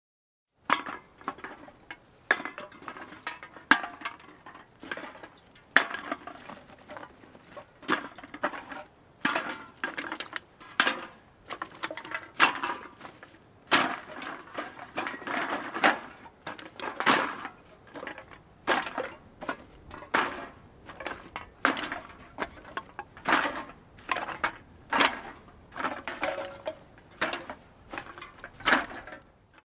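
Empty metal drink cans being tossed one after another onto a pile of cans, each landing with a sharp hollow clatter and a short rattle, about one every second or two.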